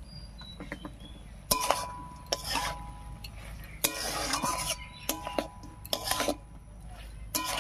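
Metal spatula scraping and knocking against a metal cooking pan while stirring ground spice into thick, sticky star fruit pickle in jaggery syrup. There are about seven irregular strokes, several with a short metallic ring.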